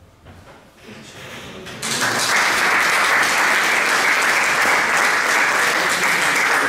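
Audience applauding. A few scattered claps come first, then the applause swells into steady full clapping about two seconds in.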